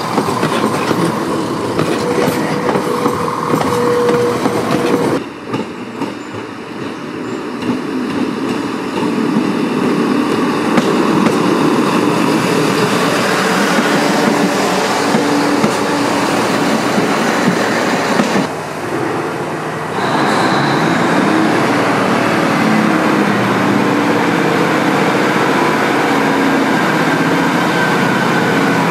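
Diesel multiple-unit trains running at a station platform, heard in three cuts: a West Midlands Railway Class 170 pulling out, a Class 158 running alongside the platform, then a single-car Class 153 sprinter departing, its diesel engine note climbing in steps as it accelerates away.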